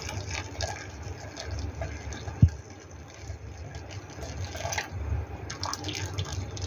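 Hot water being poured to make a ginger drink, a steady rushing fill, with a single sharp knock about two and a half seconds in.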